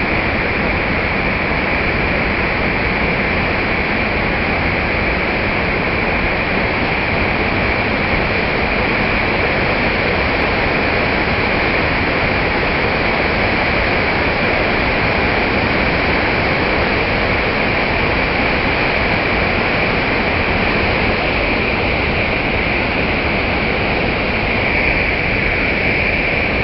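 Water pouring over a masonry weir and churning in white water below it: a loud, steady rush.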